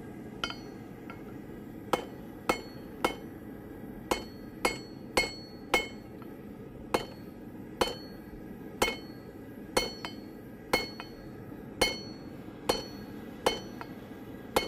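Blacksmith's hammer striking hot steel on an anvil, each blow ringing, at an uneven pace of one to two a second: two light taps, then heavier blows from about two seconds in, drawing out a square taper. A steady gas forge roar runs underneath.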